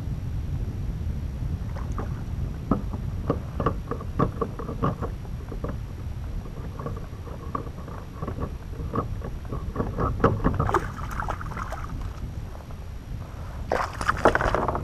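Wind rumbling on the microphone over a kayak, with scattered light knocks and clicks from the rod and hull as a hooked fish is fought on light line. Splashy bursts come twice in the second half, the louder one near the end as the fish nears the kayak.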